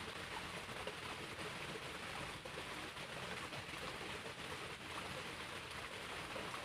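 Small creek's water running, a steady even rushing hiss.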